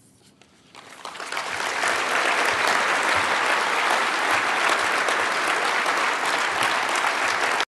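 Audience applause, starting about a second in, building over the next second and then holding steady, cut off abruptly near the end.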